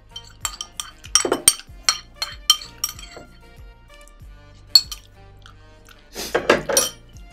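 Metal spoon clinking against a small glass bowl: a quick run of sharp clinks over the first three seconds, a single clink about five seconds in, and a short denser clatter near the end. Background music plays underneath.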